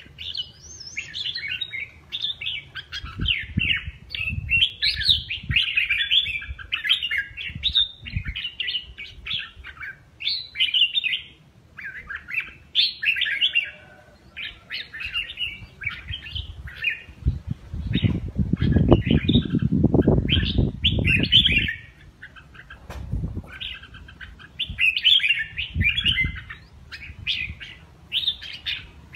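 Caged red-whiskered bulbul singing: quick, varied bursts of bright chirpy phrases, one after another with short pauses. Around the middle, a few seconds of low bumping and rustling noise sound under the song.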